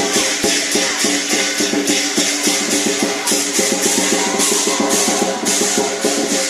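Lion dance percussion: a drum beating fast and steadily, with ringing gong tones and clashing cymbals crashing about twice a second.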